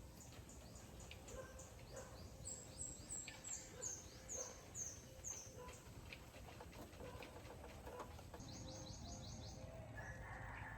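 Small birds singing faintly: a run of about seven high, falling notes, roughly two a second, then a quick high trill near the end, over a low background hum.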